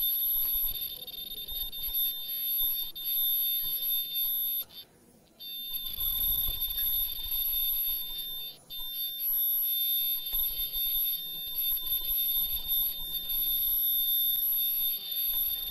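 Disposable face-mask production machine running: a steady high-pitched whine over a low mechanical rumble. The sound drops away for about a second about five seconds in, and dips briefly again near nine seconds.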